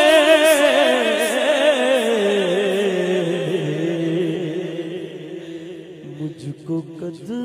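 A male naat reciter holds a long, wordless melismatic note with a heavy vibrato. The note slides slowly down in pitch and fades out about six seconds in.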